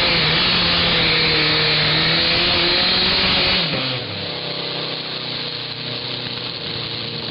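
Modified garden tractor engine running hard at a steady high pitch while pulling a weight-transfer sled. About three and a half seconds in, the pitch falls and the engine drops to a quieter, lower-pitched idle.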